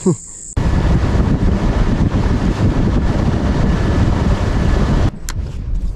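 Small outboard-powered fishing boat running at speed over open water: a steady, loud rush of motor, hull and water noise with wind on the microphone. It cuts off sharply near the end, leaving a quieter background with a couple of clicks.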